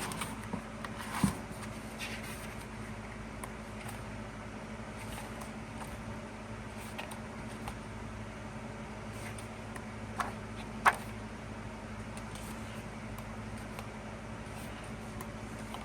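Steady low electrical hum, with a few light taps and clicks from handling an album and its contents: one about a second in and two close together near eleven seconds.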